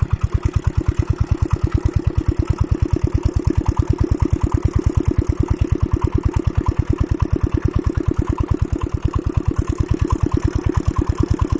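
Large old water-pump engine running steadily, with an even, fast beat of firing strokes.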